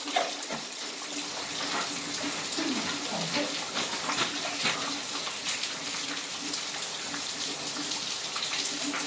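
Water running and splashing steadily, a continuous spattering rush like water pouring from a tap or hose.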